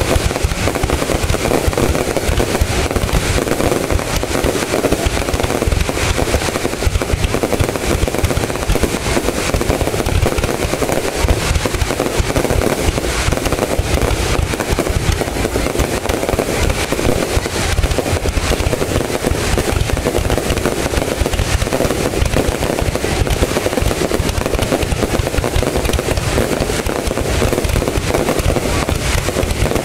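Fireworks display: a dense, continuous barrage of bangs and crackling with no let-up.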